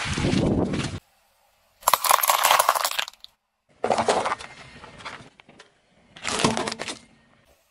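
A car tyre crushing objects in four short separate bursts of crunching and cracking, with near-silent gaps between them. The first burst, with its weight in the low end, is a bag of water beads being squashed. A later one is paper cups collapsing under the tyre.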